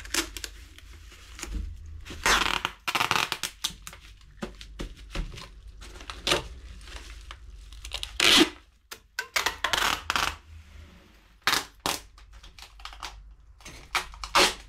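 Plastic bag crinkling and rustling in irregular bursts as a games console is packed into it, with sharp knocks and clicks of handling in between.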